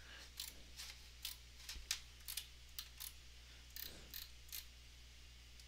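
Faint, irregular clicking of a computer mouse, about a dozen short clicks that stop shortly before the end.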